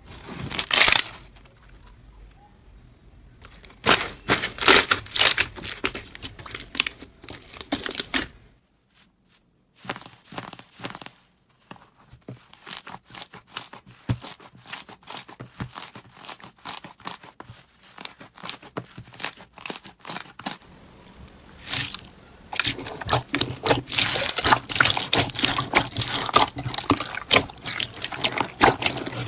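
Slime being squeezed, stretched and poked by hand, making quick sticky crackles and pops. The sound changes abruptly about 8 seconds in and again about 22 seconds in, as the clips change.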